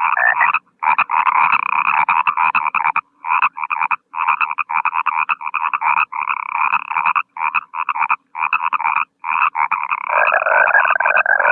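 Frogs croaking in quick pulsed runs, each a fraction of a second to about a second long with short pauses between. A lower, longer trilling call joins near the end.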